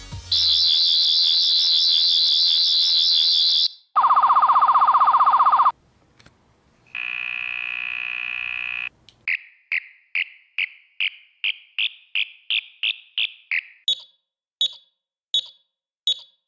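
Electronic sound effects of a 10th Doctor sonic screwdriver toy remote. It gives a warbling high whine for about three seconds, then a lower buzzing tone, then a steadier tone. After that comes a run of short chirps rising in pitch, about three a second, and near the end evenly spaced high beeps.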